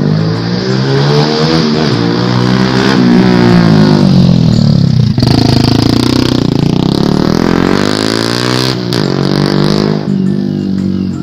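Yamaha LC135 single-cylinder four-stroke motorcycle with an Exzos AHM M1 short exhaust accelerating hard and revving. Its engine note climbs, drops sharply about halfway, climbs again, then falls away near the end.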